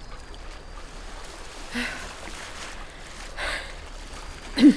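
A winded man huffing, two heavy breaths about two and three and a half seconds in, over a steady wash of sea ambience, with a short loud vocal sound just before the end.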